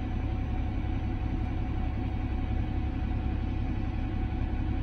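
Challenger 1042 tractor's engine idling, a steady low drone heard inside the closed cab.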